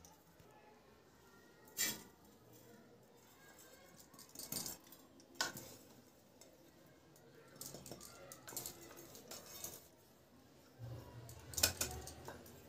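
Faint, scattered clinks and taps of a steel mixer-grinder jar against a steel plate as a coarsely ground roasted spice mix is tipped out and spread, with a cluster of taps a little past the middle and a low hum coming in near the end.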